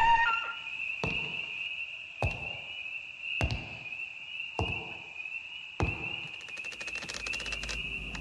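Slow, heavy footsteps, six thuds a little over a second apart, over a steady high-pitched chirring. Near the end a fast rattle of ticks sets in.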